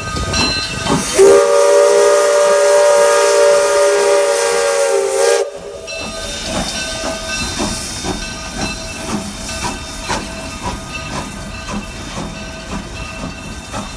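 Steam locomotive's chime whistle sounding one long blast of several notes together, starting about a second in and cutting off after about four seconds. Then hiss and a quick, regular beat, about two a second, as the locomotive moves past.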